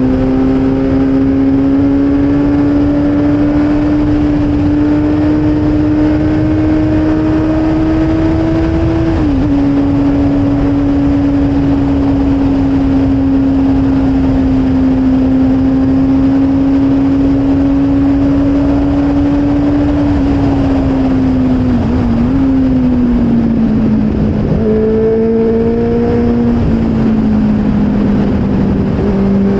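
Motorcycle engine running at speed over a steady low rush. Its note climbs slowly, dips briefly about nine seconds in, falls away from about twenty seconds in and picks up again near the end.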